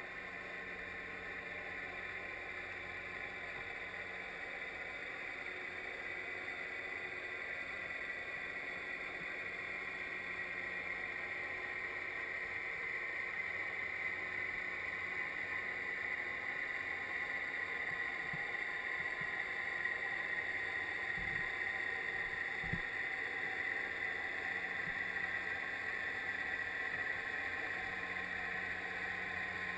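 Boat motor heard through the water: a steady whine over a low hum, growing louder and sinking slightly in pitch, with two faint low knocks about two-thirds of the way through.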